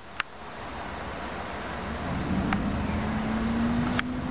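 A car driving along the street: a steady engine hum comes in about halfway through and holds its pitch over a steady hiss. There are a few sharp clicks.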